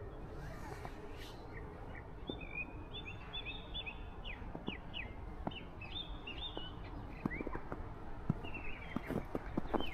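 Small birds chirping, many short, high calls in quick runs, over a steady low background hum. In the last few seconds, short sharp crunches of footsteps in snow join in.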